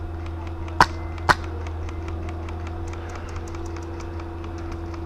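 Two sharp airsoft gun shots about half a second apart, followed by a scatter of fainter quick ticks over a steady low hum.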